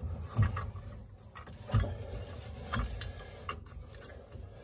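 Metal handling noises as a combination gas valve is positioned and fitted onto a boiler's gas pipe: a few sharp metallic clicks and light knocks, each with a low thud.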